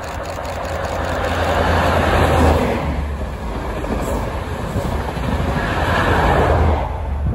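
High Speed Train with Class 43 diesel power cars 43062 and 43013 at each end, passing close at speed with a rush of wheel and air noise over a low engine drone. The lead power car's engine swells and passes a couple of seconds in, the coaches rush by, and the rear power car brings a second swell near the end.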